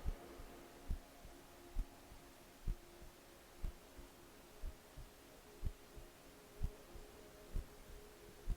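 Faint ambient background track: a low steady drone with a deep heartbeat-like thump about once a second.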